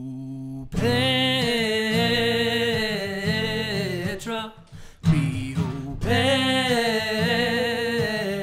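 Male voice singing the opening of a song in two long phrases with a short break between them, over acoustic guitar.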